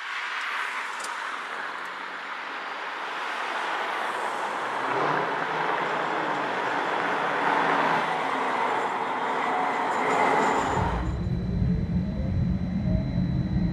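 Road traffic passing with tyre noise, getting louder as cars and a QLine streetcar approach. About eleven seconds in, it changes abruptly to the streetcar's interior: a heavy low rumble with a faint rising electric motor whine as the car picks up speed.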